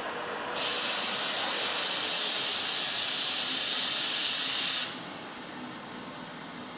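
A loud, steady hiss of compressed air venting from a train's air system. It starts abruptly about half a second in and cuts off abruptly about four seconds later, leaving a low background rumble.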